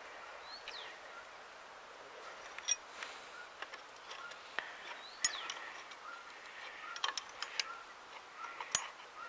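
Scattered light metallic clicks of a ring spanner being worked on the cover-plate nuts of an MTZ-80 tractor's gearbox, the sharpest click near the end, with birds chirping in the background.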